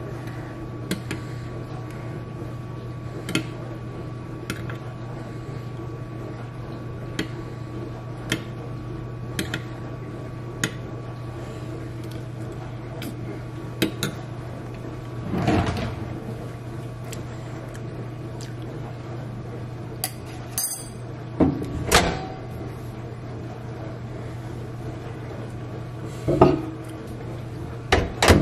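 Steady low hum of a running dishwasher, with scattered light clicks and taps from hands handling small things, and a few louder knocks and rustles near the middle and toward the end.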